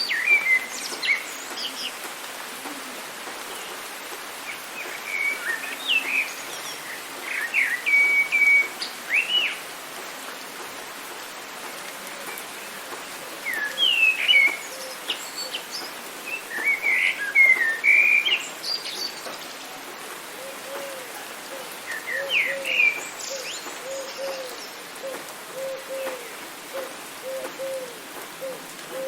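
Songbirds singing in short chirping phrases that come in clusters, over the steady hiss of rain. In the last third a lower call joins in, repeated over and over.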